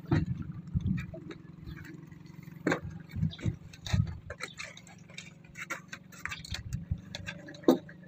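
Scattered light clicks and knocks at an uneven pace over a steady low hum, with a sharper knock near the end.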